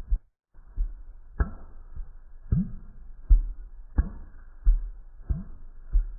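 Pop Cat meme sound effect: a mouth 'pop' repeated in a steady rhythm, each a short blip with a quick upward glide, about every two-thirds of a second, after a brief dropout just inside the start.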